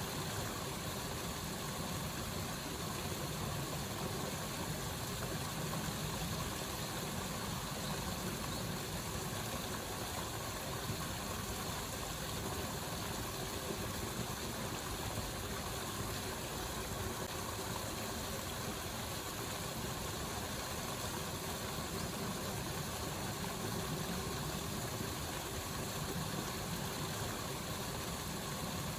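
Waterfall: water rushing steadily.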